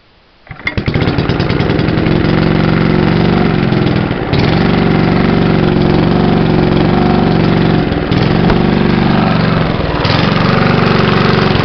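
Small vintage air-cooled stationary engine pull-started, catching about half a second in and then running loud and steady, with a few brief dips in speed.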